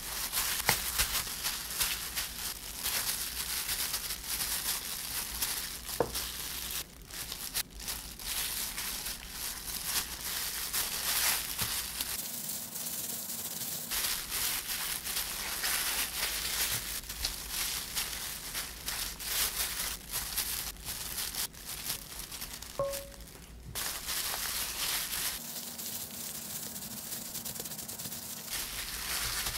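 Disposable plastic gloves crinkling and rustling as hands spread rice over a sheet of seaweed and roll and press it into gimbap, with many small crackles.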